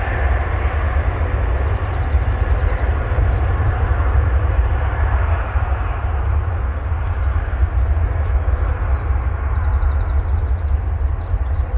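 Jet airliner engines rumbling as a landing aircraft passes, the sound thinning out about halfway through, over heavy wind rumble on the microphone.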